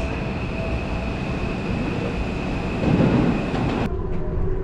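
Seibu 001 series Laview limited express electric train pulling into a station platform: a steady rumble with a thin high-pitched whine and a louder low surge about three seconds in. At about four seconds the sound switches abruptly to the quieter, duller hum of the train's interior.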